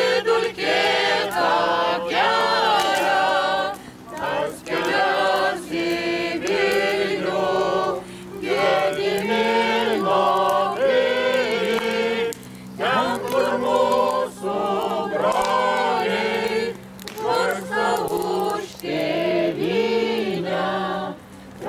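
Lithuanian folk ensemble singing a folk song together without instruments, in phrases a few seconds long with short breaths between.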